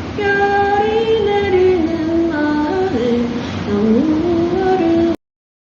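A woman humming a slow melody with no accompaniment, long held notes stepping and sliding up and down in pitch; it cuts off abruptly about five seconds in.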